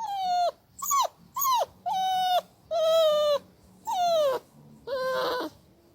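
A dog giving a series of about seven whining yelps, each one short and falling in pitch.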